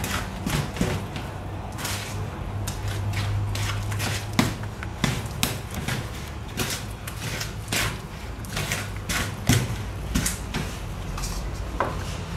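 Wooden spoon beating cake batter in a plastic bowl, knocking against the bowl in repeated strokes about twice a second.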